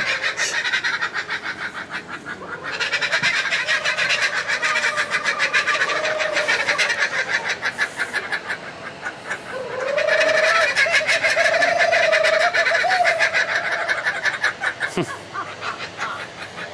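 A person imitating bird calls well enough to pass for a real bird: a fast, continuous chattering with a wavering, whistle-like lower note that swells and fades, loudest past the middle.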